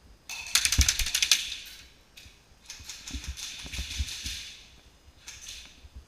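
Airsoft electric gun firing on full auto in three bursts of rapid clicking shots. The first is the loudest, a longer and quieter burst follows, and a short burst comes near the end.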